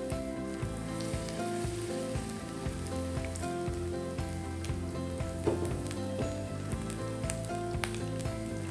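Food sizzling and crackling in a hot oiled frying pan, with frequent sharp pops of spattering fat, over background music with held notes.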